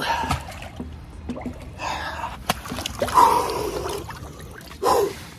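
Water sloshing and trickling as a man moves into a cold-plunge tub, with gasps and a short vocal 'ooh' near the end: his reaction to the freezing water.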